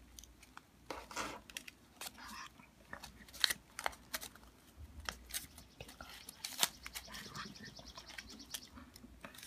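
Folded origami paper being handled and bent by hand: irregular short, sharp paper crackles and rustles as the paper units are pushed and spread apart.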